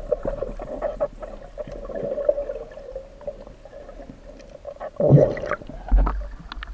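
Muffled underwater sound of river water heard from below the surface: a steady hum with scattered small clicks and knocks, and two louder dull thumps about five and six seconds in.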